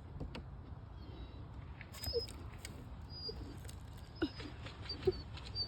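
A frustrated dog whining in a few short whimpers while trying to reach an animal hidden under plywood, with faint scratching between them.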